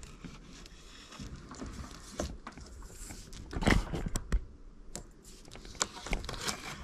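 Handling noise as a red PVC tube with electrical cable taped to it is worked through a hole drilled in a ceiling, among insulation: irregular scraping and rustling, with a few sharp knocks around the middle and again near the end.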